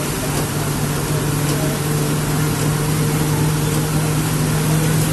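Bus engine running at a steady speed under way, heard from the driver's cab: a constant low hum over a haze of road and rain noise.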